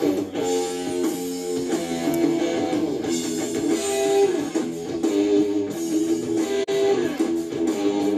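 Music led by guitar, with notes changing steadily throughout.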